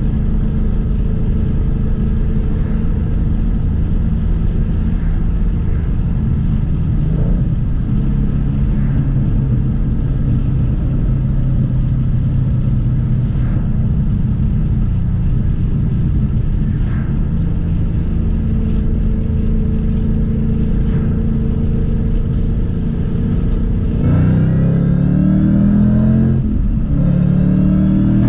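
Car engine running steadily, then revving up twice near the end, its pitch climbing each time.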